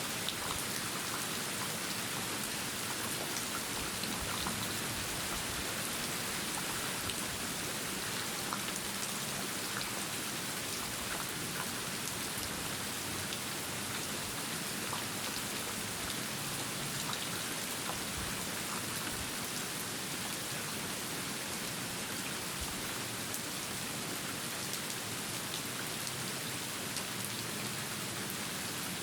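Steady rain: a dense, even hiss dotted with many small drop ticks.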